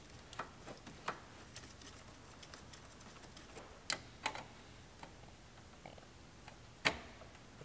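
Scattered light clicks and taps from hooking up an A/C refrigerant recovery machine, the loudest near the end.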